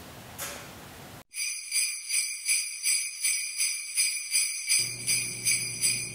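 Jingle bells shaken in a steady rhythm, about three shakes a second, starting suddenly after a second of faint room tone. A low steady note joins near the end.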